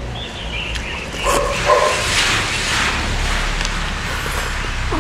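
A dog barks twice in quick succession, followed by a long slurp of noodles being sucked in.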